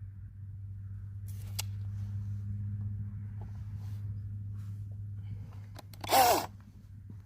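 Steady low hum, then about six seconds in a short burst from a Parkside Performance 40 V cordless chainsaw's motor as the trigger is blipped once, its pitch falling as the chain coasts down. There is a light click about a second and a half in.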